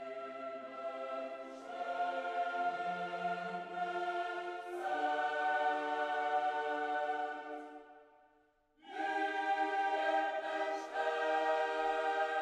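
Background music of slow, sustained choir-like chords, changing every two to three seconds. It fades almost to silence about eight seconds in and starts again about a second later.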